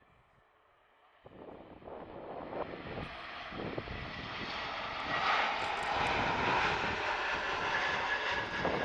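Airbus A321neo airliner arriving to land, its jet engine noise starting about a second in and swelling steadily as it draws nearer.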